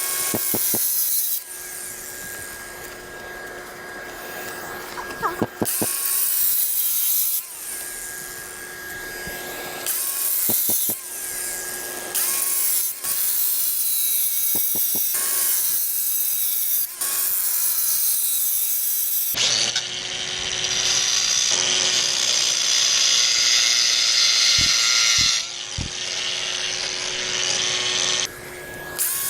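Bosch cordless brushless angle grinder with a thin-rim diamond blade engraving lines into rough concrete. A steady motor whine is broken every second or two as the blade bites into the cut and eases off, and from about 19 s to 28 s there is a longer, denser stretch of grinding.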